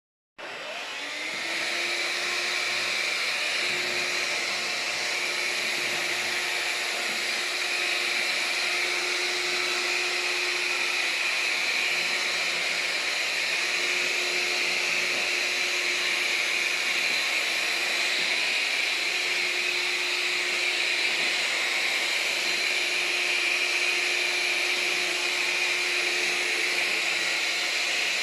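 Vacuum cleaner switched on, its motor spinning up over the first second or so, then running steadily.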